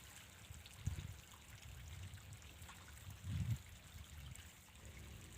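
Faint trickling water, with a low rumble and two muffled low thumps, about a second in and about three seconds in.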